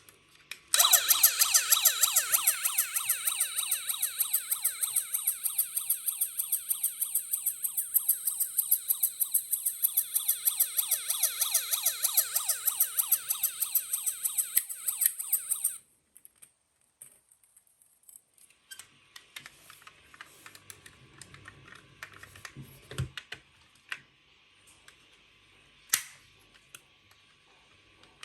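Toy minicar's electronic siren sounding as a fast yelp, rising and falling several times a second. It cuts off suddenly about halfway through, leaving only faint clicks and handling noises, with one sharper click near the end.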